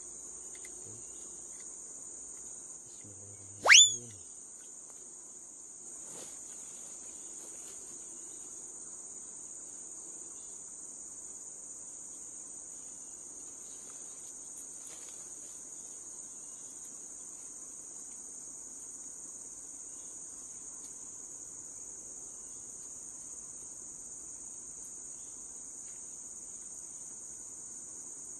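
A steady, high-pitched chorus of insects, droning continuously. About four seconds in, a brief loud whistle sweeps sharply upward.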